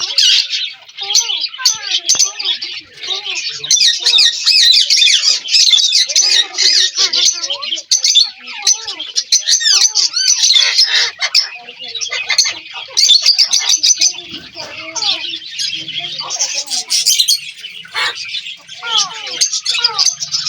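Several ringneck parakeets squawking and chattering at once, a dense, continuous mass of shrill overlapping calls and quick whistled glides.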